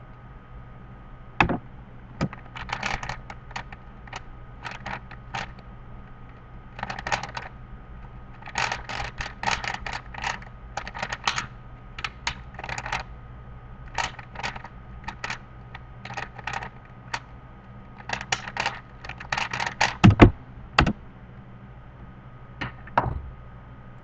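A 3x3 Rubik's cube being speedsolved: rapid flurries of plastic clicking and clacking as its layers are turned, in bursts with short pauses between them. About twenty seconds in come a couple of heavier knocks.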